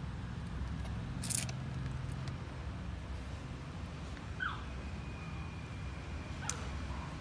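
A young puppy gives a short, high, falling whimper a little past the middle, and a fainter squeak near the end, over a steady low rumble. A sharp click about a second in is the loudest moment.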